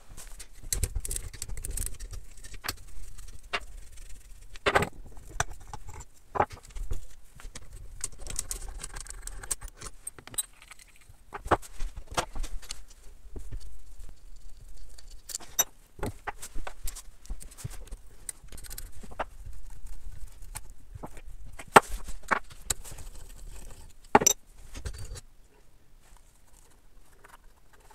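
Irregular metallic clicks, clinks and light knocks of hand tools and engine parts as the cylinder-head nuts of a small pit-bike engine are undone and the head and cylinder are worked off the studs.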